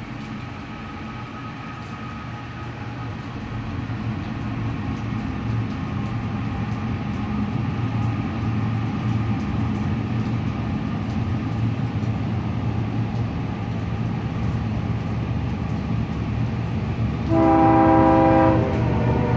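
CSX freight train approaching, its low rumble growing steadily louder. About seventeen seconds in, the locomotive sounds its air horn: one blast of just over a second, a chord of several tones and the loudest sound here.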